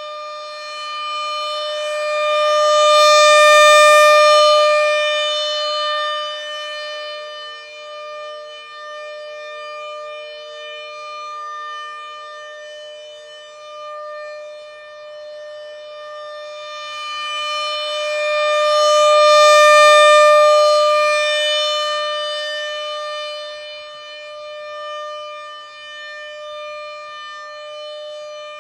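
Rotating outdoor warning siren sounding one steady tone that swells loud as the horn turns toward the listener and fades as it turns away, loudest twice, about sixteen seconds apart.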